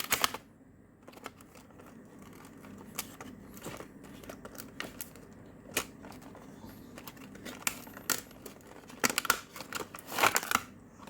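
Toy packaging being opened by hand: plastic and cardboard crinkling, rustling and clicking in scattered bursts, busiest near the end.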